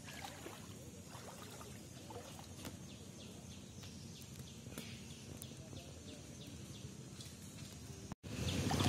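Faint outdoor ambience: a run of short, high, falling chirps from a small animal, repeated several times a second for a stretch, over a low steady hiss. The sound cuts out abruptly near the end.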